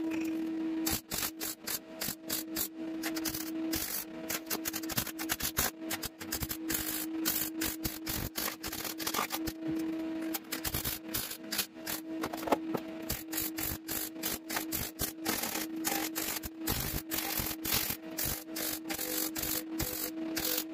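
MIG welder stitch-welding a steel patch panel into a car body: an irregular crackling arc in short runs with brief pauses, over a steady hum from the welder.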